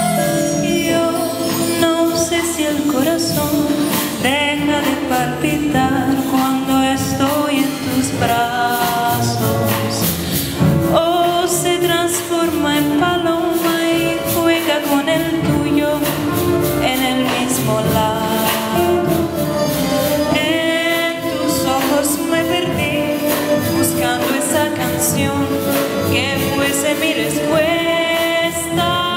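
Jazz big band playing, with a woman singing the lead line over the horns and rhythm section.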